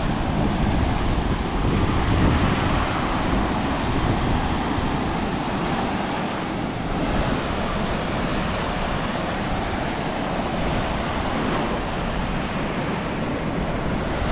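Indian Ocean surf breaking and washing up a sandy beach, a steady rush that swells and eases with the waves. Wind rumbles on the microphone underneath.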